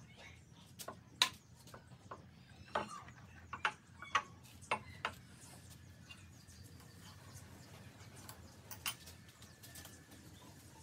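Scattered sharp clicks and knocks from the parts of a homemade metal lathe being handled and worked, bunched together in the first half and sparser after.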